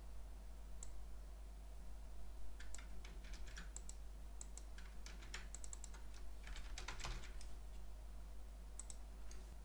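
Computer keyboard typing in short runs of keystrokes with pauses between them, over a faint low steady hum.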